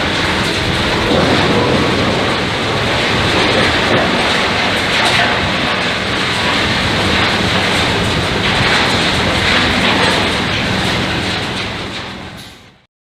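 Sawmill wood-processing machinery running, a dense steady mechanical noise with scattered knocks, fading out near the end.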